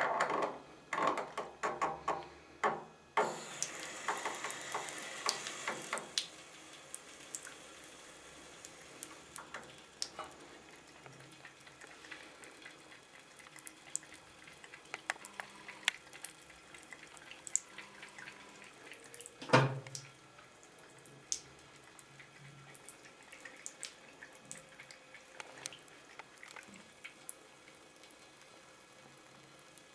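Water running from a sink faucet and splashing, loudest in the first few seconds, then a thinner stream with many small drips and ticks as a cat drinks from it. One louder knock or splash about twenty seconds in.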